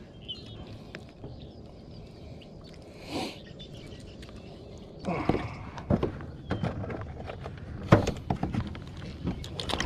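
Scattered knocks and clicks of a caught bass and fishing gear being handled against a plastic fishing kayak's hull, starting about five seconds in, with one loud knock about eight seconds in.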